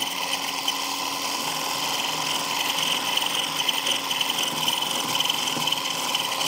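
Electric stick blender with a wire whisk attachment running steadily, a constant motor whir, whipping egg whites and sugar in a glass bowl.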